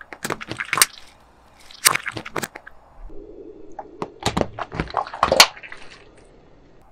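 A car tyre rolls slowly over slime-filled mesh stress balls on asphalt, with sharp cracks and pops as the balls split under the weight. The cracks come in three short clusters, the loudest near the end.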